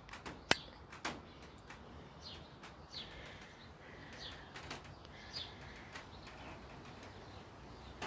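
Wild birds at a bowl of dry cat food: short, high, falling chirps every second or so, with sharp clicks and taps among them, the loudest click about half a second in.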